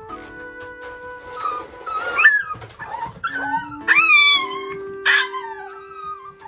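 Micro teacup toy poodle puppy screaming in shrill, pitch-sliding yelps and whines to demand its food, the loudest about two, four and five seconds in. Background music with long held notes plays underneath.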